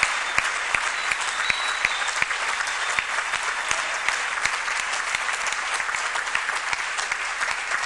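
Audience applauding, many hands clapping at once at a steady level.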